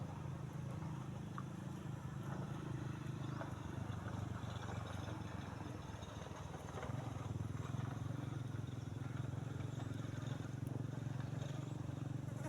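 A steady low engine drone, easing off about four seconds in and coming back stronger about seven seconds in.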